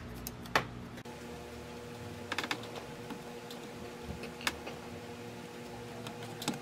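Scattered sharp metal clicks and ticks, a cluster of them in the middle, as an aluminum bar with a brazed aluminum joint is forced by hand in a steel bench vise; the joint holds. A faint steady hum comes in underneath about a second in.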